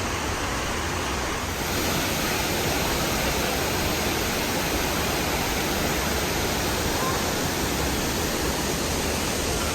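Waterfall rushing steadily at close range, a dense constant wash of falling water that turns a little louder and hissier about two seconds in.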